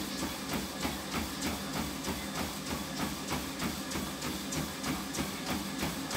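Running feet pounding a motorised treadmill's belt in an even rhythm of about three footfalls a second, over the steady hum of the treadmill's motor.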